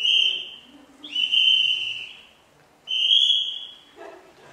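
A whistle blown in three separate blasts of about a second each at a steady high pitch, the way a mime-clown 'talks' without words.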